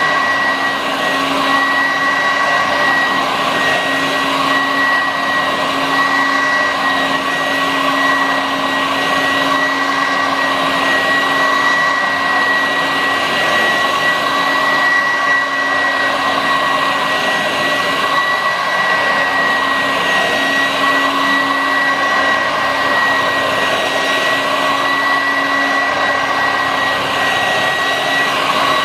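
Vorwerk VK 117-1H upright vacuum cleaner running steadily: a rush of air with a constant high motor whine and a lower steady hum, unchanging throughout.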